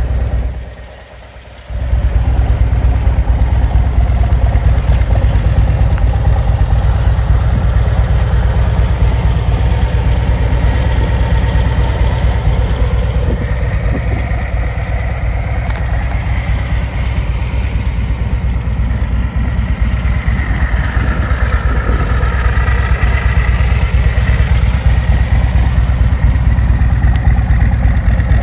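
2024 Harley-Davidson Street Glide's Milwaukee-Eight 117 V-twin idling steadily in neutral, after a brief drop in level about a second in.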